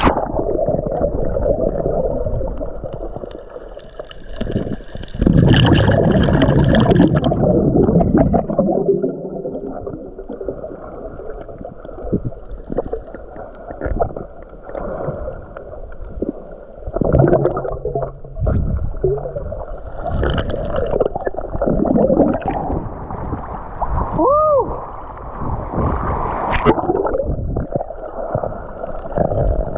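Muffled underwater sound of a camera below the sea surface: dull rushing and gurgling water with the high end cut away, louder for a couple of seconds about five seconds in and again in several short surges later on as it moves through the water.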